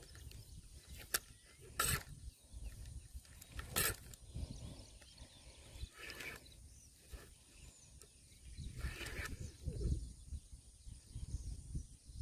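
Fishing reel being wound in while a hooked wallago catfish is played on the line, with a low handling rumble and a few sharp clicks about two and four seconds in.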